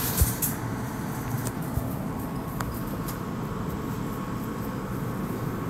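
Street ambience: a steady low hum of traffic with a few faint clicks. A faint steady whine comes in about two seconds in.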